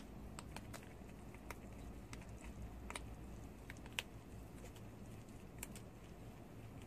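Prairie dog chewing a green food pellet held in its front paws: irregular small sharp crunches, a dozen or so, over a low steady background hum.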